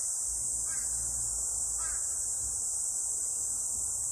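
Steady high-pitched drone of a summer insect chorus, with a few faint short chirps about a second and two seconds in.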